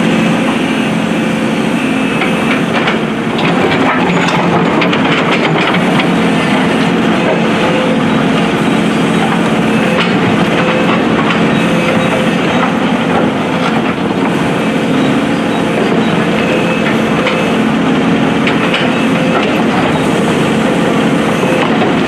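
Hydraulic excavator's diesel engine running steadily while its bucket digs into the cobbled road, with stones and soil clattering and scraping throughout.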